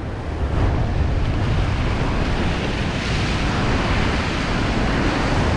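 Ocean surf washing over a rock ledge, a steady rush with wind buffeting the microphone; the wash grows a little brighter about three seconds in.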